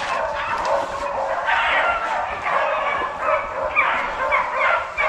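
A pack of rabbit hounds baying continuously on a rabbit's track, several dogs' yelping calls overlapping: the sign that the pack is running the rabbit.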